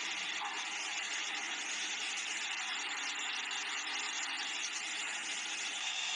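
Steady machine noise of a garment factory floor: industrial sewing machines running, with a dense, rapid ticking over a steady hum.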